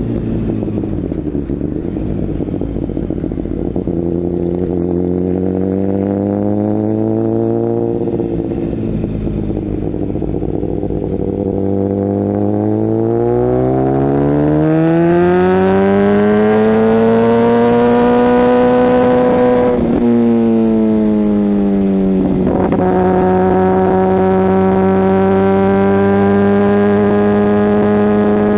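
Kawasaki ZX-10R's inline-four engine through a Mivv aftermarket exhaust while riding. The pitch rises and falls as the throttle opens and closes, with a long climb past the middle. It drops sharply about three quarters in, then holds at a steady note.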